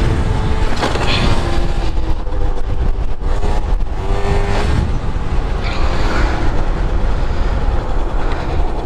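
Yamaha Jog two-stroke scooter engine revving during a wheelie, its pitch climbing twice, under a heavy rumble of wind on the microphone.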